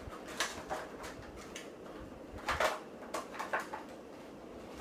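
Crinkling and rustling of a Funko Pop figure's cardboard box and plastic insert being handled and opened by hand: a few short irregular crackles, the loudest about two and a half seconds in.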